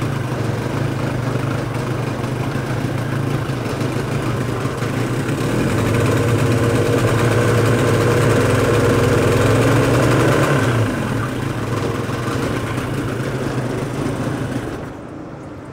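Parsun 25 two-cylinder two-stroke outboard running in a test tank. It runs harder for a few seconds around the middle, settles back, and cuts out near the end. The engine is overheating even with a new water-pump impeller.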